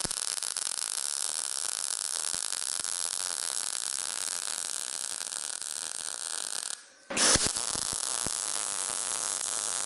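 MAG welding arc of a Weldinger MEW 202 SYN feeding 0.6 mm wire at its lowest setting on thin sheet steel, giving a steady hiss. About seven seconds in the arc stops for a moment, then restrikes with a louder burst and runs on.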